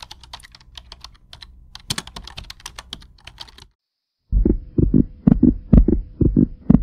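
Soft, rapid clicking of keyboard typing, then after a brief silence a loud, fast heartbeat of low thumps, about three a second, over a faint steady hum, as heard through a stethoscope held to a dog's body.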